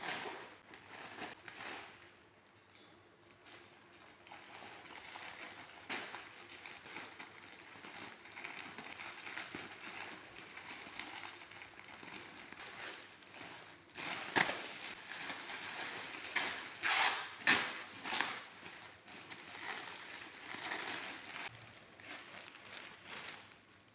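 Plastic packaging crinkling and rustling as a parcel is handled and opened, with louder bursts of crackling crinkle from about fourteen to eighteen seconds in.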